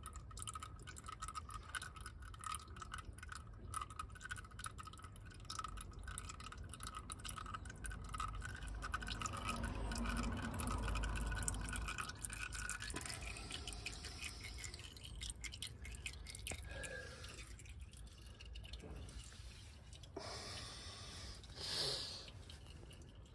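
Used engine oil dripping and dribbling from the Triumph Stag's oil filter housing into a drain pan: a rapid, irregular run of small ticks over a faint noise.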